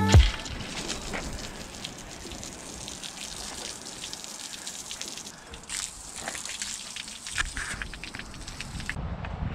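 Water gushing and trickling, with scattered light clicks and scrapes, as a sailboat's hull is washed down.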